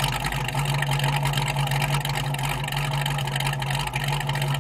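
1967 Shelby Mustang's V8 idling steadily through its tailpipes, an even, unchanging note.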